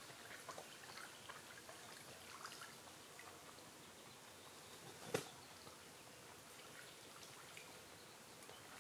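Faint trickle and drip of water nearby, with many small scattered ticks and one sharp click about five seconds in.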